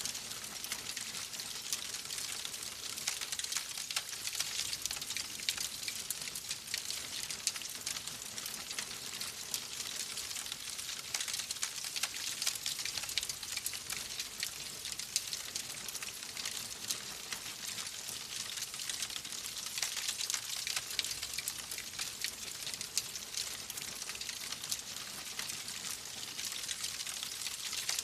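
Fire crackling in a fireplace: many small, sharp crackles and pops over a steady hiss.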